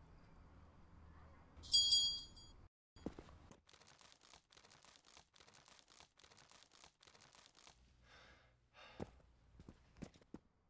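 A brief high metallic ring of several clear tones about two seconds in, then a run of faint light clicks and taps, and a breathy, sigh-like exhale near the end.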